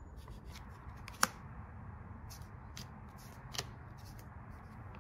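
Cardboard picture cards being set down onto a cardboard game board: a few light taps and clicks, the sharpest about a second in and another softer one about three and a half seconds in.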